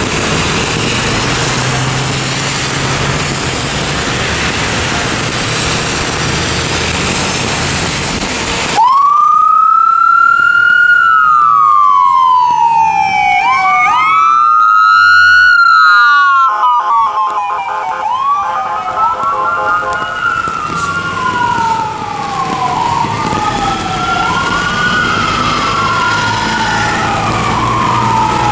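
Emergency vehicle sirens wailing, each sweep rising quickly and falling more slowly, about every two to three seconds, as a 2015 International TerraStar ambulance and a 1996 KME fire engine pull out on an emergency response. The sirens start abruptly about nine seconds in, after a steady rushing noise with a low hum. Later two sirens overlap, over the low hum of a diesel engine.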